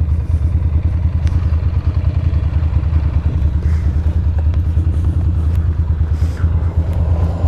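Ducati Monster's L-twin engine running at a steady, uneven throbbing idle as the motorcycle is eased into a parking spot, with a couple of faint clicks.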